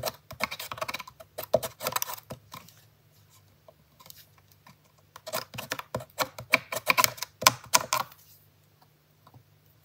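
Cardstock paper box being handled and pressed down by hand on a craft mat: quick clicks, taps and paper rustles for about two and a half seconds, a pause, then another burst of them about five seconds in.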